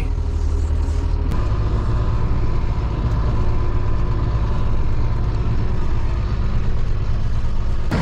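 Farm tractor engine running steadily, its note changing slightly about a second in.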